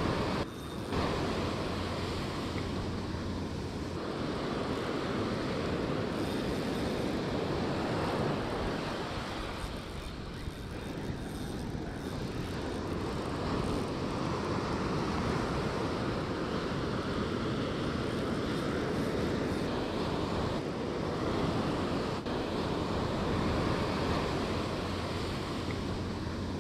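Ocean surf breaking and washing up the sand, a steady loud rush that swells and eases, with wind buffeting the microphone.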